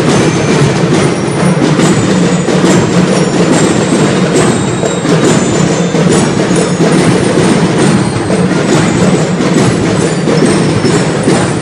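Drum and lyre corps playing: a dense, unbroken roll of snare and bass drumming with high bell-lyre notes ringing over it.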